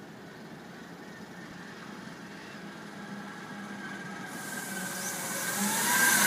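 Diesel engine of a heavy waste collection truck approaching and growing steadily louder. A loud hiss comes in about four seconds in as it draws close.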